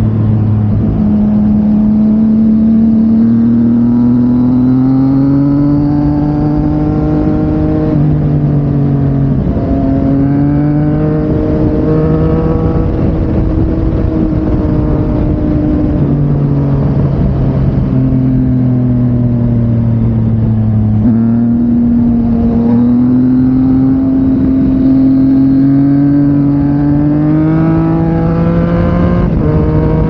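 Yamaha MT-09 inline-three engine through an Akrapovic exhaust under way. The revs climb and fall over several seconds at a time, with several sudden steps in pitch.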